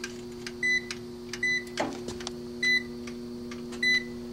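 A digital clamp meter beeps four times, short high beeps about a second apart, over the steady hum of an energized battery charger's transformer and the faint regular ticking of its wind-up charge timer.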